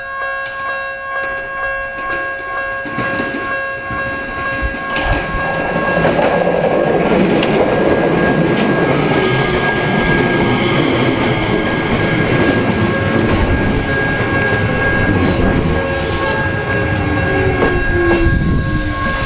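Level crossing warning signal ringing steadily with its repeating tones while an Enshu Railway electric train approaches and passes over the crossing, getting loud about six seconds in, with wheels clattering on the rails. Near the end a whine falls in pitch.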